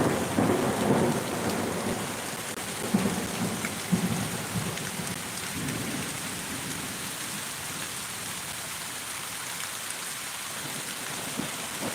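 Thunder rumbling in a few low rolls that fade away over the first half, over a steady hiss of heavy rain.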